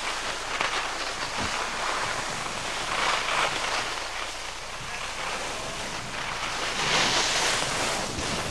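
Skis hissing and scraping over packed snow, swelling with each turn about four times and loudest near the end, mixed with wind noise on the camcorder microphone.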